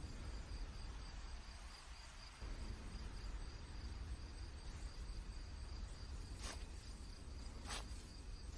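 Crickets chirping in a steady, faint high trill over a low background hum, with two soft clicks near the end.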